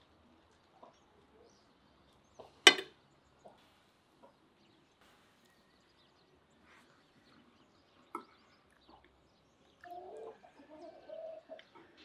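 Metal cutlery clicking and scraping against a ceramic plate while eating: a handful of sharp clinks, the loudest about three seconds in. Near the end comes a short run of low wavering sounds that rise and fall.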